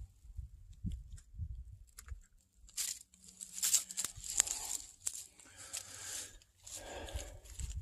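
Footsteps through dry fallen leaves: irregular crunching and rustling of dead leaf litter, with soft thuds at first and louder crunches in the second half.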